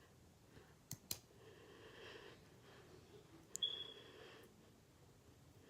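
Faint metal clicks from a small folding multi-tool being handled as its scissors are opened: two clicks about a second in, then a sharper click with a short metallic ring about three and a half seconds in.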